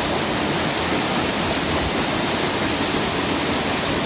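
Waterfall rushing steadily, an even wash of falling water with no breaks.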